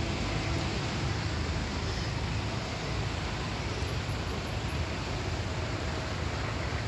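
Steady low rumble of road traffic and cars idling in a queue, with a constant hiss over it.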